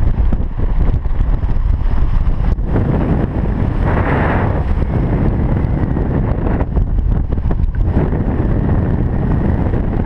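Wind buffeting the camera microphone during a parachute descent under canopy: a loud, steady low rumble, with a stronger gust about four seconds in.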